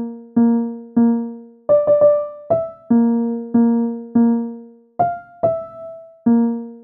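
Title music: a keyboard plays a slow tune of single struck notes, a little under two a second, each one ringing and fading before the next.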